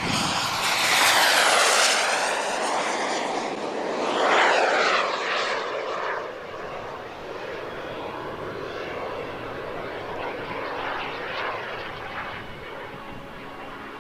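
Model jet turbine (B300F) of a large radio-controlled jet making fast passes: a loud rush with a high whine that falls in pitch about a second in, and a second loud pass around four seconds. The jet noise then settles to a steadier, quieter rush as it moves away.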